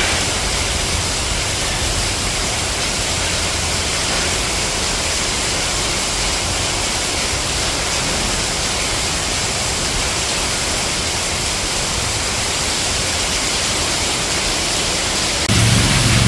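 Heavy rain falling steadily: a dense, even hiss. Near the end a low rumble joins in.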